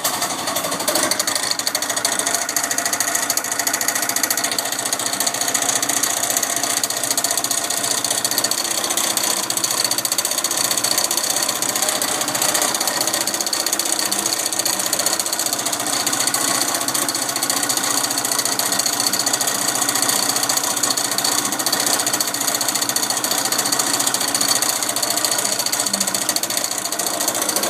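Yamaha Cygnus-X scooter's 125 cc single-cylinder engine running steadily with a mechanical rattle, which the owner takes for abnormal crankshaft noise.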